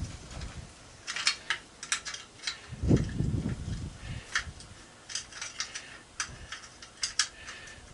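Metal hand tools clinking and scraping against a metal light fixture in irregular clicks, with a heavier dull thud about three seconds in.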